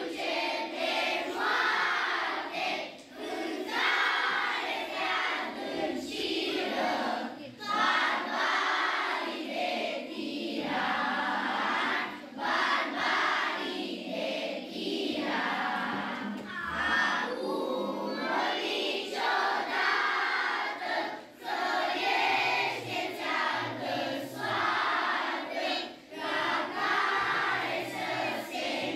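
Children's choir singing together, in phrases a second or two long with brief pauses between them.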